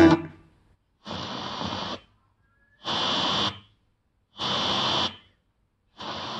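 FM radio static from a car head unit converted into a home amplifier, heard as it is tuned between stations: four short bursts of hiss, each under a second, with silence between them.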